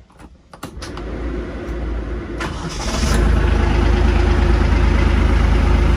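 Kubota LX2610 tractor's diesel engine being started: the starter cranks for a couple of seconds, the engine catches about three seconds in and settles into a steady idle. This is the first start after an oil change.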